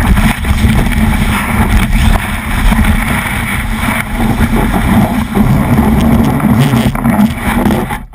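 Loud, steady rush of wind buffeting a GoPro mounted on a snowboard's nose, mixed with the board sliding and scraping over snow on the way down the slope.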